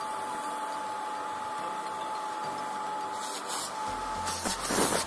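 Eureka Forbes Trendy Steel vacuum cleaner's universal motor running steadily with a high whine, drawing air through the hose nozzle with good suction after its worn hose seal was replaced. From about three seconds in there are louder, irregular gusts of rushing air as the nozzle is brought against a hand.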